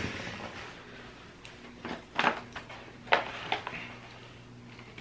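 A thin, crisp toasted almond cookie being bitten and chewed, with a few sharp crunches about two and three seconds in.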